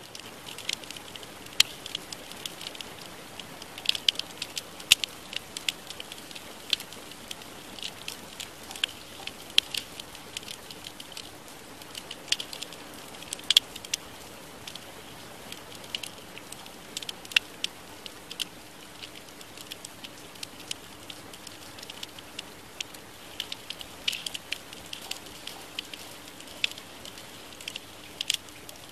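Crackling track of irregular pops and clicks over a steady hiss, with a faint steady hum beneath. It is the audible cover layer of a subliminal recording, under which very quiet, sped-up affirmations are meant to lie.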